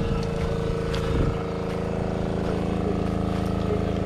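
Small engine-driven water pump running steadily, draining the stream.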